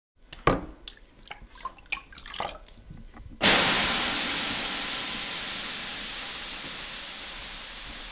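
Water sound effect of sauna steam: a few small drips and splashes, then about three and a half seconds in a sudden loud hiss of water thrown on hot sauna stones, slowly fading.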